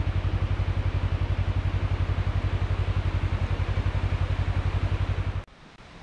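Vehicle engine running steadily while driving, with a loud, even low pulsing. It cuts off suddenly about five and a half seconds in, leaving a much quieter, even outdoor hiss.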